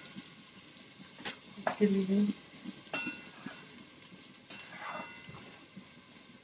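Sliced onions sizzling as they fry on high flame in a pot, with a spatula clicking and scraping against the pot a few times as they are stirred. A short low hum, the loudest sound, about two seconds in.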